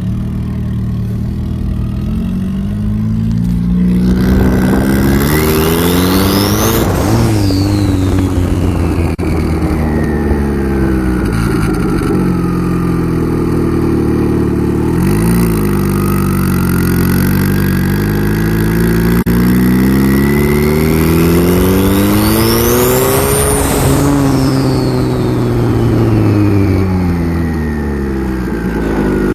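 Turbocharged PT Cruiser engine pulling hard twice under acceleration, the revs climbing and then dropping. Each time a thin turbo whine rises with the revs and falls away as the throttle lifts: a short pull a few seconds in, then a longer one from the middle to near the end.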